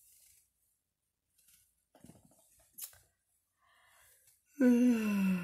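Faint small knocks and rustles, with one sharp click, then near the end a boy's long, sigh-like "hmm" that falls in pitch as he ponders which book to read.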